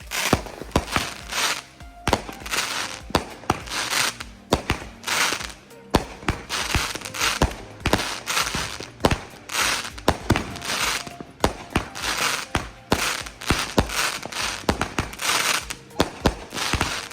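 Consumer firework cake firing a long run of shots: sharp bangs come in quick succession, mixed with short crackling, hissing bursts about once or twice a second.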